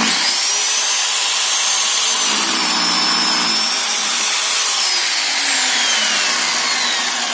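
Electric miter saw switched on, its motor and blade whining up to speed, then cutting through a wooden board, with the whine dipping slightly under the load. About four and a half seconds in the trigger is released and the whine falls steadily as the blade spins down.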